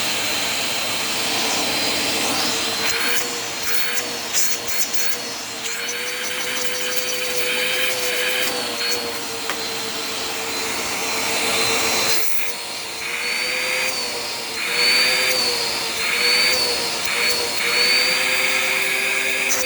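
Bissell PowerForce Compact upright vacuum cleaner running, its motor whine steady but wavering slightly in pitch. Intermittent rushes of airflow noise come and go, with a few clicks a few seconds in.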